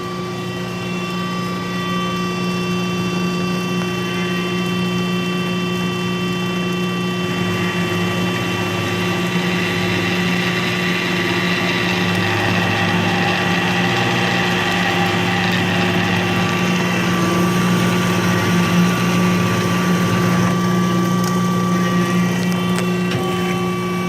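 Wells F-15 II horizontal band saw running: a steady motor hum with a constant high whine, and a rougher hiss that builds up about a third of the way in and eases off near the end.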